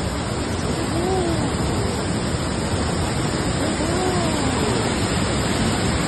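Waterfall: a steady rush of whitewater pouring down over rocks.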